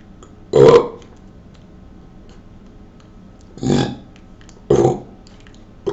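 A person burping: short, loud belches, one about half a second in, two more about a second apart in the second half, and another starting at the very end.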